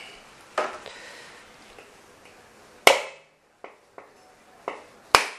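A cleaver striking a whole coconut to crack it open: a series of sharp knocks, about six blows, two of them much louder than the rest.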